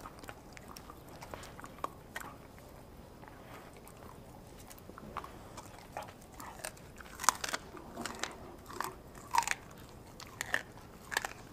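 A German shepherd/pit bull mix dog chewing raw food with its teeth, in sharp separate crunches. There are only a few crunches in the first half, then a run of louder ones in the second half.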